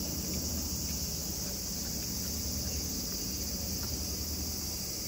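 Steady high-pitched insect chorus, with a low steady rumble underneath.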